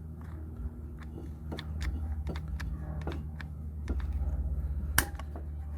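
Light clicks and taps of a brake caliper piston compression tool being handled and repositioned on a front brake caliper, with one sharper click about five seconds in, over a steady low hum.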